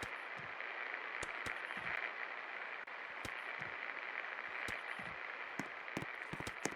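24-inch Safe Premium ceiling fan running: a steady rushing hiss of moving air, with scattered irregular clicks and low thumps.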